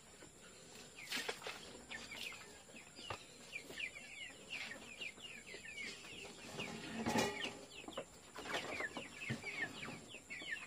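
Young white broiler chickens peeping: a steady stream of short, high, falling peeps, several a second, with a few sharp knocks mixed in.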